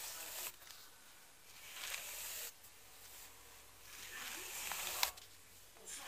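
Hairbrush drawn down through long straight hair in slow strokes, each a soft bristly hiss about a second long. One stroke ends about half a second in, another runs around the 2-second mark, a third ends with a sharp tap about five seconds in, and a fourth begins at the very end.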